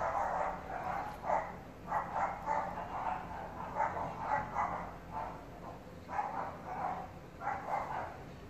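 Repeated short animal calls, coming in quick clusters of a few at a time.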